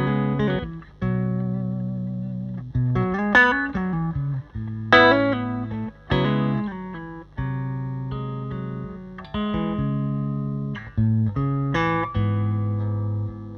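Electric guitar played through a Bad Cat Classic Pro 20 Reverb valve combo amp (6V6 power tubes): a phrase of picked chords and single notes, each struck sharply and left to ring out for a second or so.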